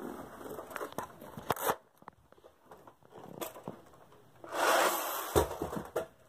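Close handling noise of plush toys and the phone moving over carpet: scattered light clicks and rustles, with a louder rub about four and a half seconds in that ends in a sharp thump.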